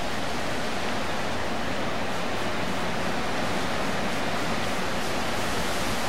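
Strong wind rushing steadily through the trees in a windstorm, an even, unbroken noise.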